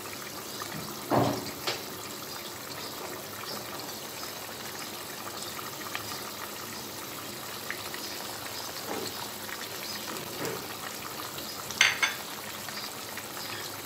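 Mustard-gravy fish curry with drumsticks simmering in a pan, a steady bubbling and light sizzle. A short knock about a second in and a brief click near the end.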